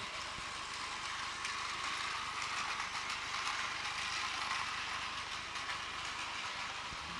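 Battery-powered TOMY Plarail toy train running along plastic track: a steady whir of its small motor and gearbox, with a few faint clicks.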